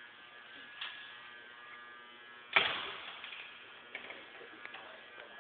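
A steady electrical buzz with faint clicks, and one loud bang about two and a half seconds in that dies away over about half a second.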